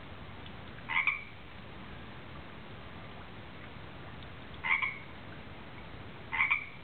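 Tree frog calling: three short croaks, about a second in, a little before five seconds and near the end, each a quick double note.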